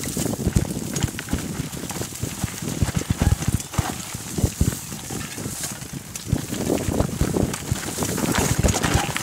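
Mountain bike descending a rough dirt trail: a run of irregular knocks and rattles as it bounces over the bumps, over a steady rushing hiss.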